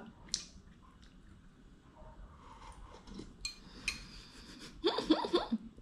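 Quiet eating sounds from a bowl of instant noodles: a light clink of a utensil against the bowl, a short noisy stretch about three and a half seconds in, and a brief sound of her voice near the end.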